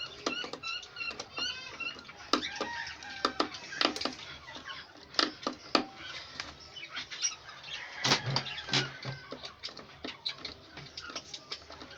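Irregular knocks and clicks of wood and hardware being worked on a wooden cage frame, with a heavier thump about eight seconds in. Small birds chirp in quick repeated notes near the start.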